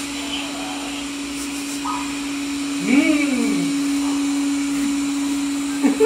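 A steady low electronic hum, with a swooping sound that rises and falls in pitch about three seconds in.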